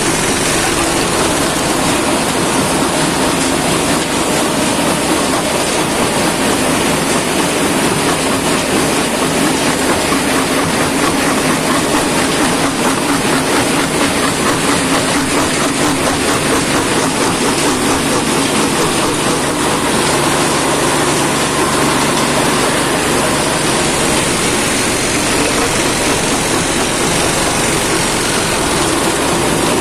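Shanbao PE 250×400 jaw crusher running and crushing rock: a loud, steady, dense clatter of stone breaking between the jaws.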